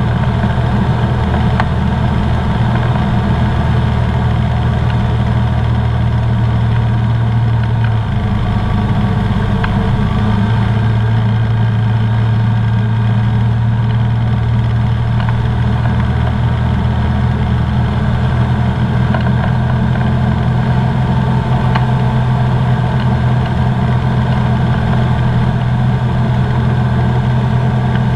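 Engine and propeller of a Comco Ikarus C42B ultralight in cruise flight, a loud steady drone heard from inside the cockpit, with a brief shift in its low pitch about eight seconds in.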